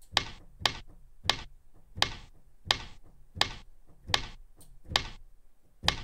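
Synthesized gunshot 'snap' layer from the Serum software synth, made from distorted and compressed noise, triggered over and over about every 0.7 s. Each hit is a sharp crack with a short noisy tail that a noise gate is cutting to make it drier.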